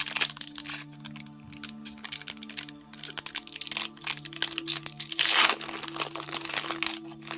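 Foil wrapper of a Pokémon trading card booster pack crinkling and tearing as it is opened by hand, loudest about five seconds in.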